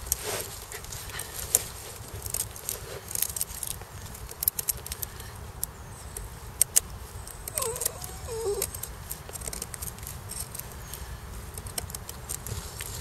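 Ka-Bar USN Mark 1 knife blade shaving curls down a wooden stick to make a feather stick, a run of crisp scraping clicks and crackles with each stroke. A short wavering tone comes in about eight seconds in.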